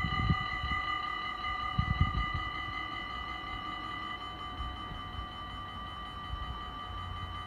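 Dutch level-crossing warning bells ringing together as a steady chiming, from several bells at once, while the half-barriers come down. A few of the tones drop out about four seconds in, as the barriers finish lowering. Low rumbles come near the start and about two seconds in.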